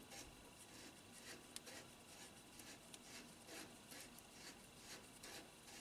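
Near silence: faint repeated rustling and light scraping, with one small click about one and a half seconds in.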